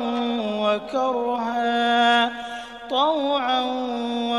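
A man's voice chanting Quranic recitation in the melodic tajweed style, drawing out long held notes with a short pause for breath about two and a half seconds in.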